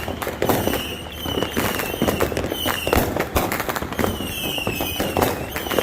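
Many fireworks and firecrackers going off at once: a dense run of sharp bangs and crackles. Short high whistles, each dipping slightly in pitch, come every half second or so.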